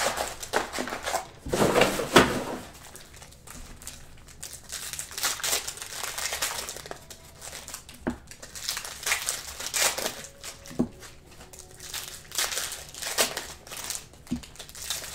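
Plastic wrapping crinkling as it is handled, in irregular bursts, loudest about two seconds in, with a few light clicks.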